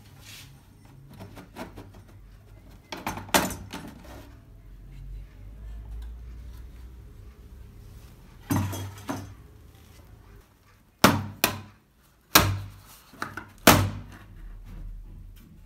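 Hard plastic and metal knocking and clicking as a TV's back cover is unscrewed and lifted off: scattered knocks, with several sharp ones near the end.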